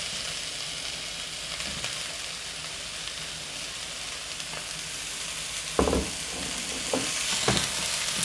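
Broccoli and bell peppers sizzling in hot oil in a frying pan as they are pushed in from a plate with a spatula. From about six seconds in, the spatula knocks against the pan three times as the vegetables are stirred.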